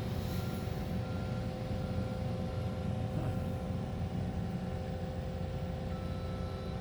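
Steady motor-vehicle engine and road rumble with a constant low hum.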